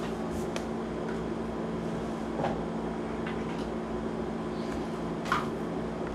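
Steady low hum of room background noise, with a few faint light ticks and rustles.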